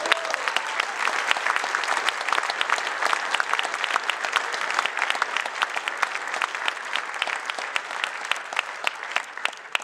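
A large audience of a few hundred people applauding: dense, sustained clapping that dies down near the end.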